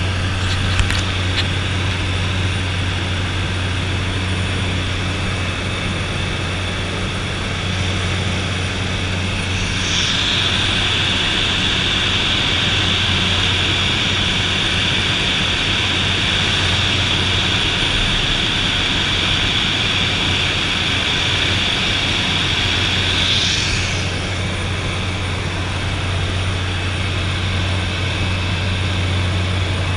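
De Havilland DHC-3 Otter's turboprop engine and propeller in cruise, heard from inside the cabin as a steady, loud drone. A higher hiss joins about ten seconds in and drops out again about thirteen seconds later.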